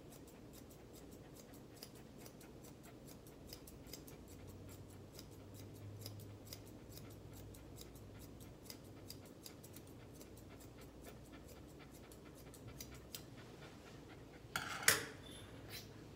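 Grooming shears snipping through a West Highland White Terrier's coat: a long run of quick, light snips, several a second, that thins out near the end. About fifteen seconds in there is one brief, louder noise.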